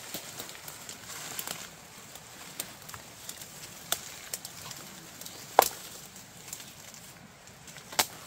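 Dry banana leaves rustling and crackling as they are grabbed and pulled by hand, with several sharp snaps at irregular intervals. The loudest snap comes a little past halfway, and another comes near the end.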